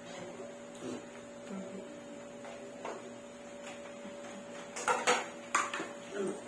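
A steady electrical hum, with a few sharp clinks and knocks of dishes about five seconds in.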